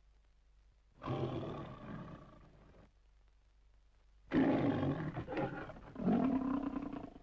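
The MGM logo lion roaring three times on an old film soundtrack: one roar about a second in, then two louder roars back to back from about four seconds in. A faint low hum runs underneath.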